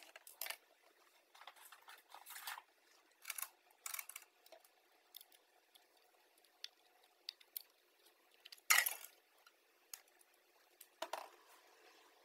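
Small hard objects being handled: irregular clicks, taps and short scrapes, the loudest a sharp clatter near the end, with no steady motor hum.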